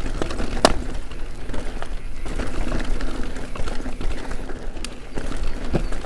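Electric mountain bike ridden over a dirt and gravel trail: steady tyre and riding rumble with scattered rattles and clicks, one sharp click about half a second in.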